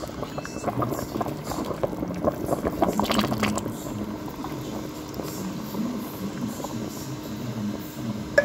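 Thin coconut milk poured into a pot of bubbling broth around a whole chicken: a stream of liquid splashing and gurgling, loudest about three seconds in.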